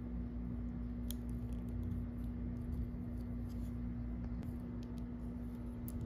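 Tiny plastic Petit Block bricks clicking and tapping as fingers handle them and press them together: scattered light clicks, a sharper one about a second in and another near the end, over a steady low hum.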